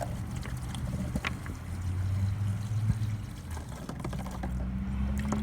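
Water pouring and trickling from a plastic water jug as it is emptied to get at the bullet inside, with a few light clicks of handling and a low steady hum underneath.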